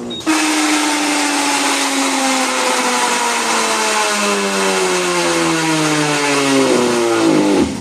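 Electrolux LES15 top-load washing machine's spinning basket being brought to a stop after the power is cut mid-spin: a very loud whining noise whose tones fall steadily in pitch as the basket slows, cutting off suddenly as it stops. The noise comes from the braking, where an improvised brake actuator and spring taken from a Brastemp washer had been fitted.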